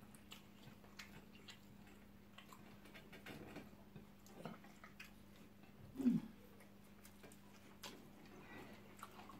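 Faint eating sounds: scattered small clicks and smacks of chewing and of fingers picking food off plates, over a low steady hum. A short voiced sound, like a brief hum of the mouth, comes about six seconds in.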